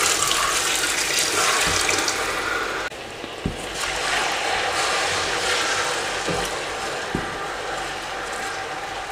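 Meat stock poured from a bowl into a pot of melted ogbono and palm oil: a steady splashing pour that stops suddenly about three seconds in. Then a wooden spoon stirring the thick soup, with a few soft thuds.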